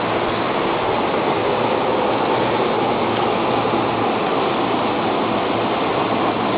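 Steady, even rushing noise of a halted commuter train standing at a station.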